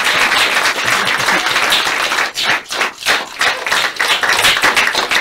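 Audience applauding. The dense applause thins to scattered separate claps after about two seconds and dies away.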